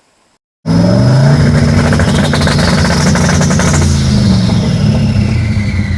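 Loud car engine running and revving, starting abruptly, with a high whine that climbs and then eases back down.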